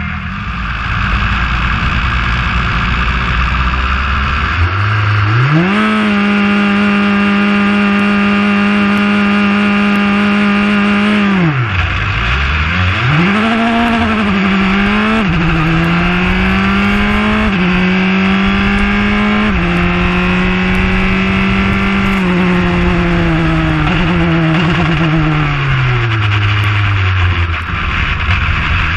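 JAF-F4 formula car engine heard onboard at racing speed. It climbs to high revs and holds there for about five seconds, drops sharply about halfway through, then pulls up again through several upshifts, each a sudden step down in pitch. It eases off gradually near the end, all over a steady hiss of rain spray and wind.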